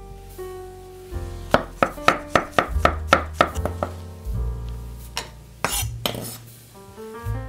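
Chef's knife chopping chestnut mushrooms on a wooden cutting board: a quick run of about four strokes a second for a couple of seconds, then a few scattered knocks, over background music.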